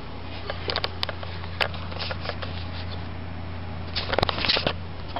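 A steady low hum with scattered light knocks and rustles as a handheld camera is moved about, with a cluster of knocks about four seconds in.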